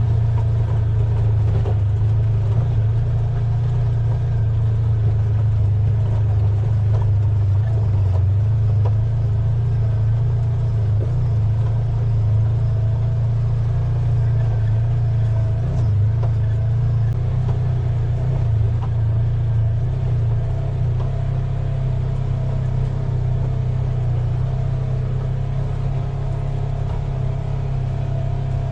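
Side-by-side UTV engine running steadily as the buggy drives along a dirt trail, a constant low drone that holds an even pitch and level throughout.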